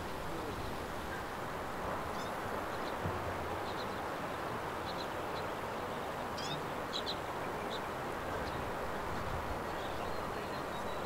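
Steady outdoor background noise with a few faint, short, high bird chirps, most of them around the middle.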